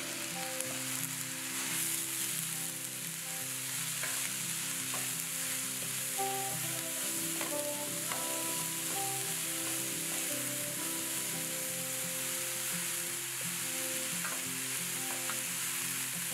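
Diced vegetables (celery, bell peppers, chayote, carrots) sizzling steadily in oil in a wide pan, stirred with a wooden spoon, with a few faint scrapes and clicks. Soft background music with held notes plays underneath.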